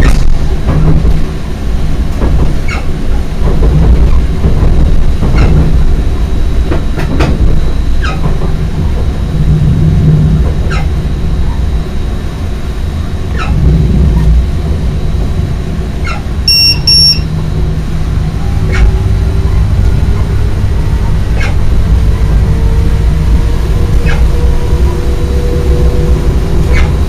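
Stadler FLIRT electric multiple unit heard from its driver's cab while running: a steady low rumble with sharp clicks every second or few. A short double electronic beep sounds about two-thirds of the way through, and a faint whine slowly rises in pitch near the end.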